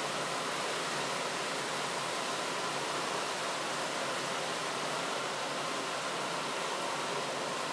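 Optimus 8R petrol camping stove's vaporising burner running with a blue flame, a steady, even hiss.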